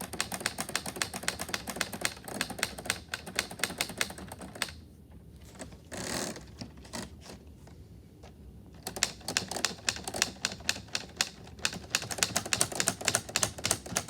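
Keys of a LEGO Ideas Typewriter (set 21327) being typed on: rapid plastic clicking and clacking of the brick-built keys and mechanism. The typing stops for a few seconds, with a short swish about six seconds in, then resumes.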